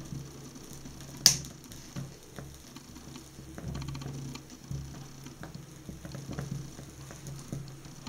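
Small flames on a burning synthetic ballerina flat crackling and sputtering in irregular small ticks, with one sharp, loud click a little over a second in.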